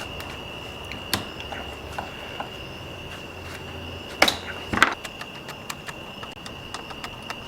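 Scattered light clicks and knocks of small parts and tools being handled, with two sharper knocks a little past the middle, over a steady high-pitched whine.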